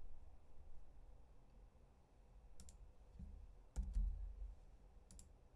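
A few faint, sharp clicks, spaced about a second apart, with a dull low thump alongside the second one.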